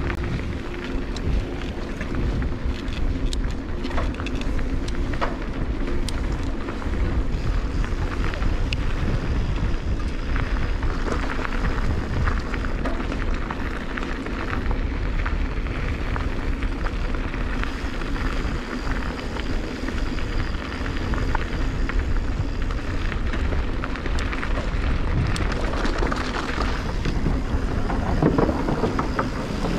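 Mountain bike rolling fast over a loose gravel track, with steady wind rumble on the handlebar camera's microphone and a constant crunch and rattle of tyres and bike. Near the end the tyres roll onto the wooden slats of a boardwalk and the sound changes.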